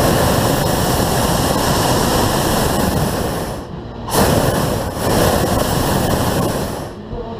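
Hot air balloon's propane burner firing in two long blasts: a loud, steady rush that stops for about half a second around four seconds in, then starts again and cuts off just before the end.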